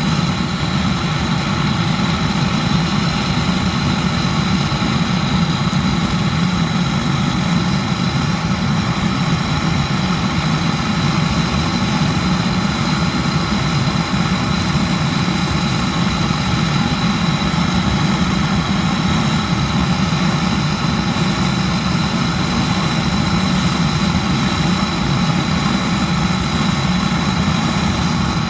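Swiss Army petrol vaporizing burner running at a steady full flame: a loud, even roar with a thin high whistle over it.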